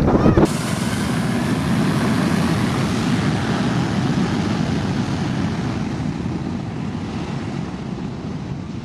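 Jet noise from a departing Boeing 737-800's CFM56-7B engines: louder for the first half second, then a steady rush that slowly fades as the aircraft goes away.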